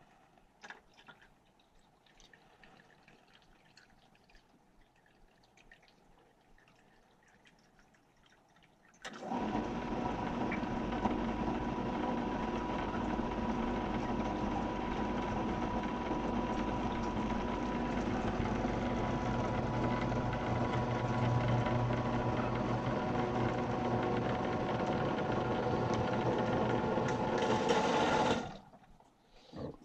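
Condensate pump kicking on about nine seconds in and running with a steady hum and water noise for about nineteen seconds, then cutting off abruptly: it is emptying its reservoir of water poured in to test it for leaks.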